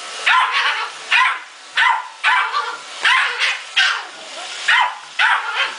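Yorkshire terrier barking at a robot vacuum: short, sharp, high barks repeating about twice a second.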